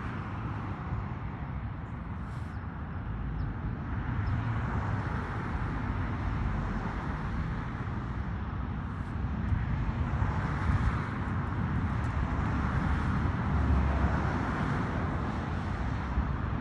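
Road traffic going by: a steady rush of passing cars with a low rumble, swelling about four seconds in and again from about ten seconds.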